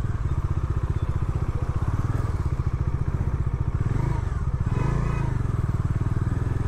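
Bajaj Dominar 400's single-cylinder engine running steadily as the motorcycle is ridden, with an even train of exhaust pulses.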